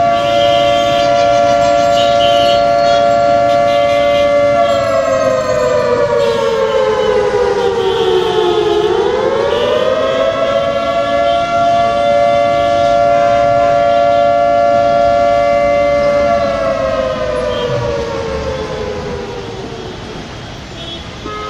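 A loud wailing siren: it holds one steady pitch for about four seconds, slides down for about four more, swoops quickly back up, holds again for several seconds, then slides slowly down and fades near the end.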